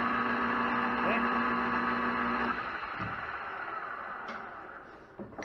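Metal lathe running with a steady hum while a round-nose file deburrs the grooves in spinning brass stock. About two and a half seconds in the motor is switched off and the spindle winds down, the sound fading away over the next couple of seconds.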